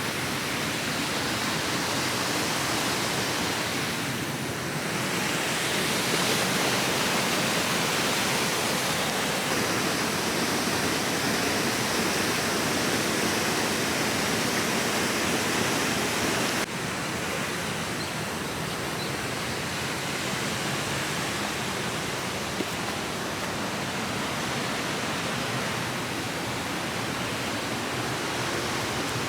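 Steady rush of flowing water from a creek cascading over rocks. The sound changes suddenly, a little quieter and duller, about two thirds of the way through.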